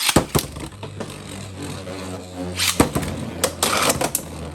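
Two Beyblade X spinning tops, Dran Sword and Wizard Arrow, ripped off string launchers and spinning in a plastic stadium. A steady whir with sharp clacks as the tops collide, several in quick succession in the second half.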